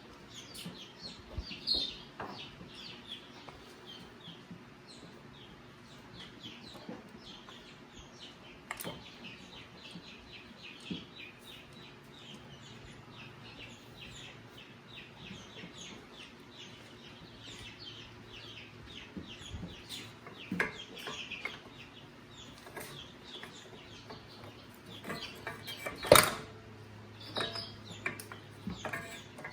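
Birds chirping and clucking in the background, many short calls throughout, with a few scattered clicks and one loud sharp knock near the end.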